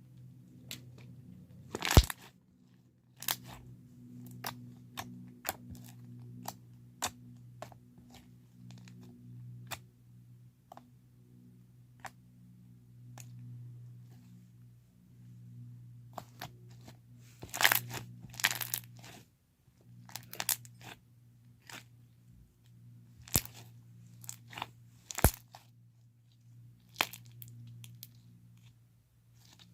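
Slime being squished and worked by hand for ASMR, making irregular sharp clicks and pops, with the loudest pops about two seconds in, in a cluster near the middle, and about five seconds before the end. A faint steady low hum runs underneath.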